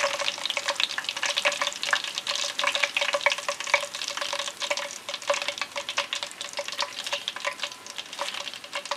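Hot frying oil crackling and sizzling with a dense, fast patter of small pops, from breaded chicken drumsticks fresh out of shallow oil. A faint steady tone runs underneath.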